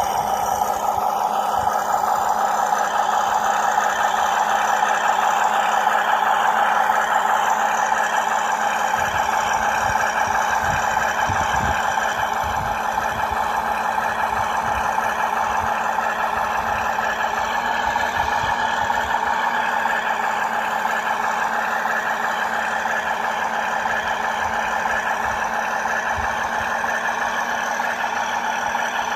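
A WPL B36 Ural RC truck's electric motor and gearbox whining steadily as it crawls under load, with scattered low thumps, most of them around ten to thirteen seconds in.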